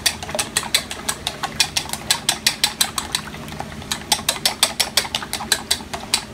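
Raw eggs being beaten with chopsticks in a stainless steel bowl: the sticks click rapidly against the metal, about five clicks a second in a fairly even rhythm.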